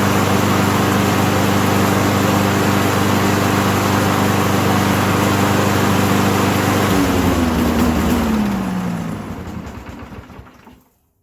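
Craftsman self-propelled lawn mower's small engine running steadily, then slowing down and dying out about seven seconds in, as if starved for fuel.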